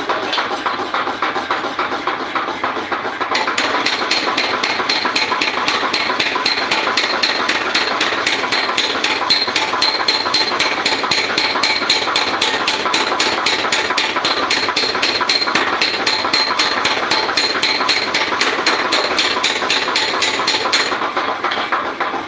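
Rapid, regular hammer blows on hot iron, several strikes a second. About three seconds in they get sharper and brighter, with a ringing metallic tone, and they ease off near the end, over a steady mechanical running noise.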